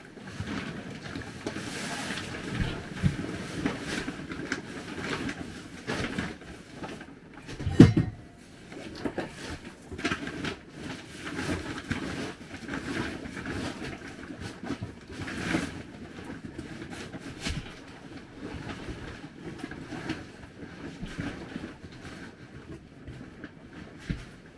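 Knocking, scraping and rattling as an item is pushed and shifted around in the storage compartment under an RV couch, with irregular clunks and one loud thump about eight seconds in.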